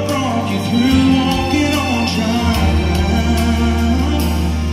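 Live gospel song: a woman singing long held notes over strummed acoustic guitars and sustained low bass notes.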